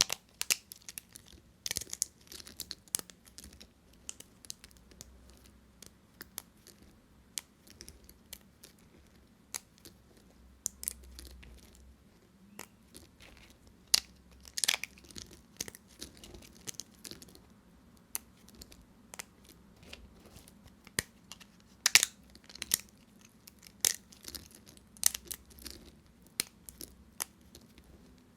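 Dry bar soap being cut with a knife: irregular crisp crunches and cracks as the blade goes through and pieces break off, with a few louder snaps in among them.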